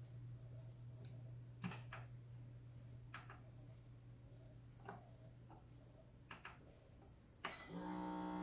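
Faint separate clicks of front-panel keys and the rotary control knob of a Dräger Fabius GS anesthesia machine being pressed and turned, over a steady low hum. About a second before the end a louder sustained pitched tone with several overtones starts.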